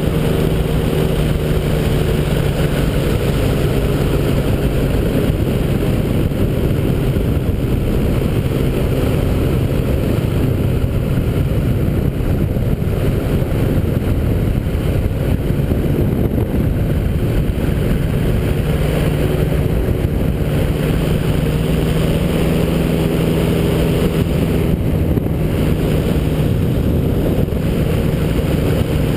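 Ultralight trike's engine and pusher propeller running steadily in flight, heard from the open cockpit as a constant drone.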